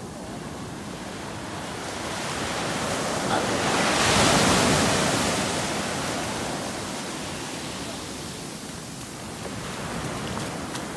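Sea waves: a wave swells and breaks into a wash of foam, loudest about four to five seconds in, then dies back to a steady surf hiss.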